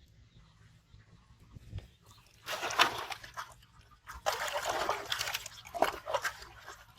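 Water splashing and sloshing in irregular bursts, starting about two and a half seconds in, with a longer stretch of splashing from about four seconds in.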